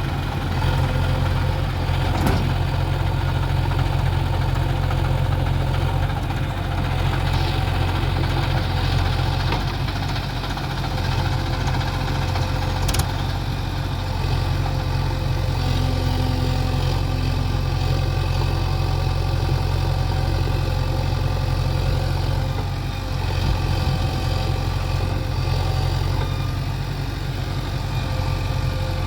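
Heavy diesel earthmoving machinery running steadily with a deep, even engine hum, with two short sharp knocks, one about two seconds in and one about halfway through.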